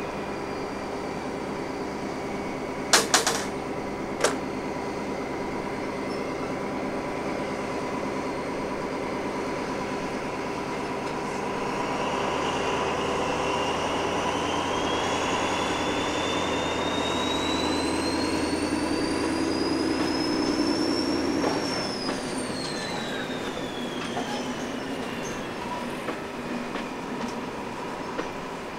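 SNCF BB 67400-class diesel locomotive pulling passenger coaches away at low speed, its engine running with a steady low hum, with two sharp knocks about three and four seconds in. About midway a whine rises for several seconds, then falls away as the low engine hum drops off about two-thirds through.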